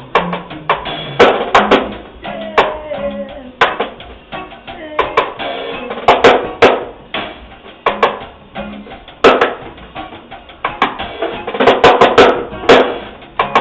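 Drum kit played live with a backing band at a sound check: sharp, uneven drum hits over the band's music.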